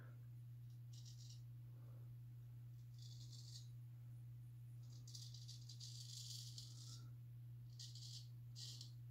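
Straight razor scraping through lathered stubble in short raspy strokes, about five, with a longer run of strokes in the middle.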